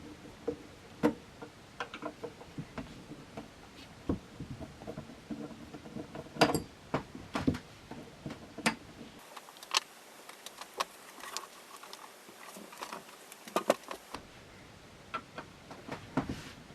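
Irregular light clicks and metallic taps of a screwdriver working small screws out of the rack-mount ears on a synthesizer module's metal case, with a few sharper knocks.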